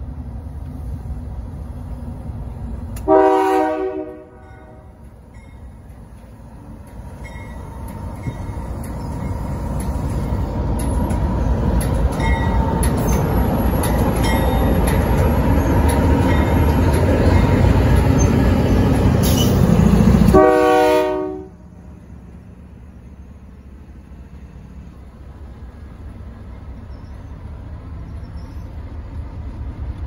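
Freight train led by a GE diesel locomotive: a short horn blast about three seconds in, then the locomotive's engine and wheel rumble building as it nears and passes close, with a second short horn blast at about twenty seconds. After that comes the steady rumble of freight cars rolling by.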